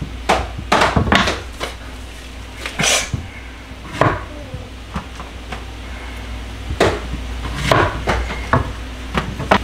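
Kitchen knife cutting Thai eggplants into quarters on a cutting board: irregular sharp knocks of the blade on the board, several in the first two seconds and again near the end.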